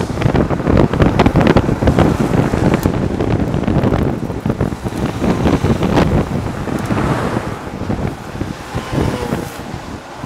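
Wind buffeting a fast-moving microphone, mixed with the rumble of longboard wheels rolling on asphalt, with irregular sharp crackles. Loudest and gustiest in the first few seconds, easing after.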